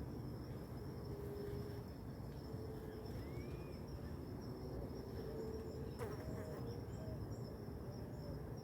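A flying insect buzzing close by, its pitch wavering and coming and going, over a steady high-pitched insect call such as a cricket's. A single sharp click comes about six seconds in.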